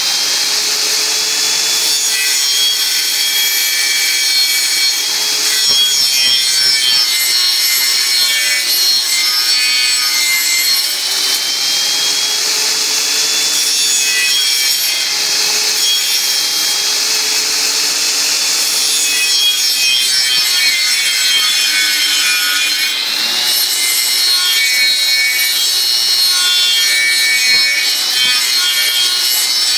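A homemade copy lathe cutting a spinning piece of firewood freehand: a steady, loud shaving noise as the cutter reduces the wood to fine sawdust, over a motor whine whose pitch sags and recovers every few seconds as the cut loads it.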